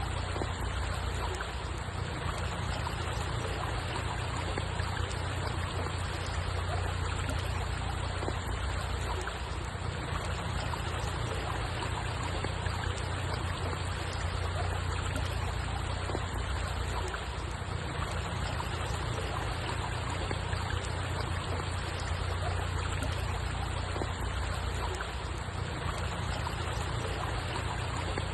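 Running water trickling and flowing steadily, over an even low rumble.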